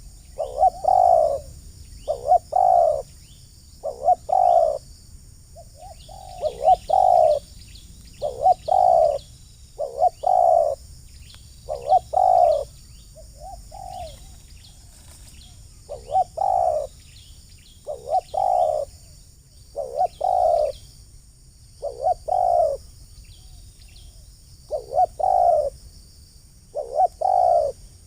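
Spotted dove (terkukur) cooing: repeated coo phrases about every two seconds, with a short break near the middle.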